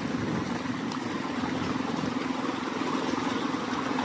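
A motor running with a steady low hum, over a wash of water splashing from milkfish thrashing in a crowded net cage.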